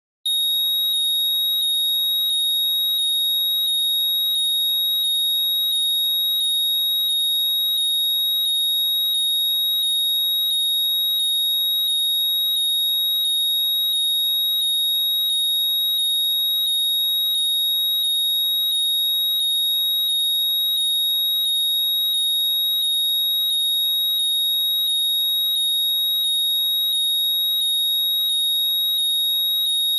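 Apple AirPods Find My alert sound played loud: a steady high tone with short rising chirps repeating evenly, without pause.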